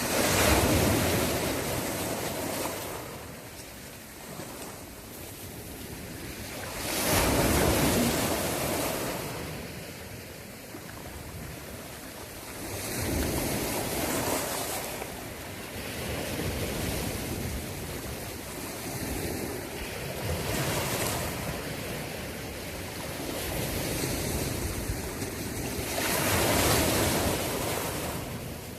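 Sea waves surging and breaking, a rush of water that swells and fades about every six or seven seconds.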